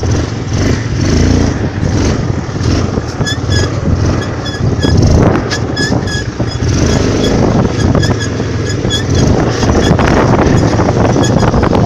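A 400 cc ATV's engine running loudly with the quad under way, with frequent knocks and rattles from the machine.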